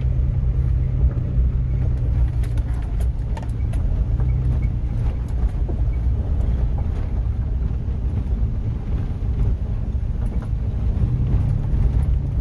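A car's engine and running gear heard from inside the cabin, a steady low hum while the car drives along.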